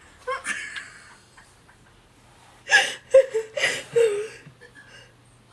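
A woman's wordless nervous laughter in short bursts: a brief one just after the start, then a longer run from about three to four seconds in, over a faint steady hum.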